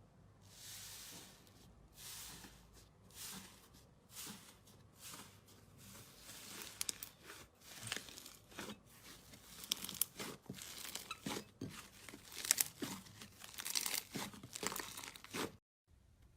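Slime being squeezed, stretched and pressed by hand, giving a long run of irregular crackly, crinkly squishes that grow denser and louder toward the end, then stop abruptly near the end.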